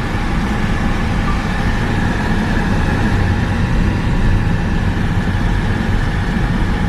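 A motor vehicle running steadily: a continuous low rumble of engine and road noise.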